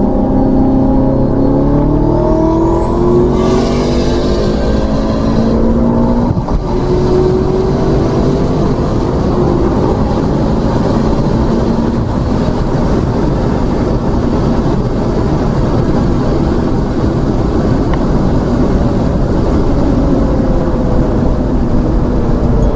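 Car engines at full throttle in a street race between an F10 BMW M5 and a big-turbo Toyota Supra. Engine pitch climbs steadily for about six seconds, with a sharp crack around then, followed by loud, steady engine and wind noise at high speed.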